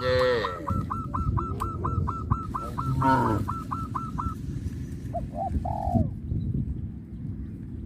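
Farmyard birds calling: a rapid string of short chirps, about four a second, runs through the first half, with a honking fowl call at the start and another about three seconds in. A dove coos twice near the end, over a steady low hum.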